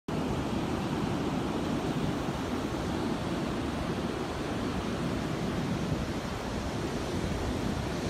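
Ocean surf breaking on a sandy beach, a steady rushing noise, mixed with wind on the microphone.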